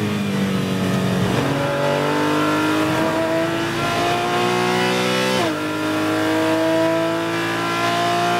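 Porsche 718 Cayman GT4 Clubsport's flat-six racing engine heard from inside the cockpit, held at steady revs through a corner and then accelerating hard with rising pitch. About five and a half seconds in, a quick upshift from third to fourth drops the pitch, and it climbs again.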